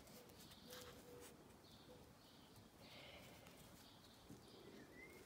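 Near silence, with faint soft rustles of yarn being drawn through with a metal crochet hook.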